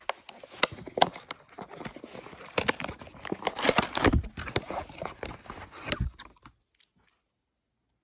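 Plastic and card retail packaging handled and pulled open by hand: irregular rustling, crackling and sharp clicks that stop about two-thirds of the way through.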